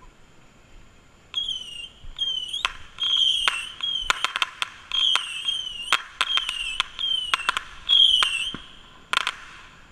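Whistling fireworks going off in quick succession: about ten short whistles, each falling slightly in pitch, mixed with sharp cracking pops and ending in a double crack.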